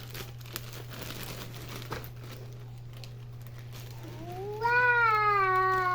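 A young child's long, drawn-out 'woooow' starting about four seconds in, rising and then slowly falling in pitch. Before it there are only a few faint clicks and rustles of handling.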